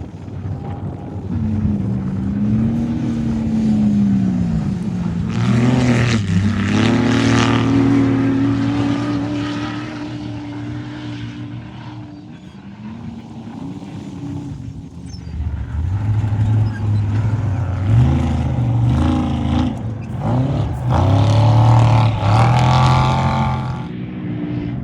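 Off-road race vehicles' engines revving hard as they pass, rising and falling in pitch with stepped changes like gear shifts. The sound swells loudest twice: about six seconds in and again near the end.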